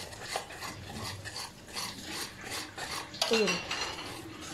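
Hand mixing a thick gram-flour and flour batter in a steel pot: wet squelching strokes about three a second, with scrapes against the metal. A brief falling voice-like sound comes about three seconds in.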